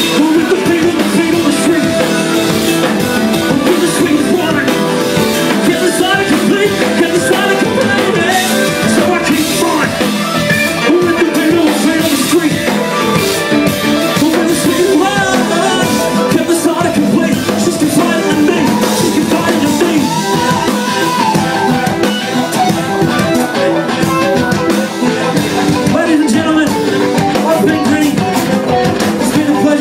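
Live hip-hop band playing loudly, with drum kit, electric guitar and DJ backing, and an MC rapping into a handheld microphone over it.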